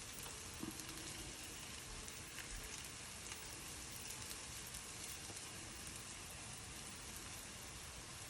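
Potato scones sizzling in bacon fat in a frying pan on high heat: a steady, even sizzle.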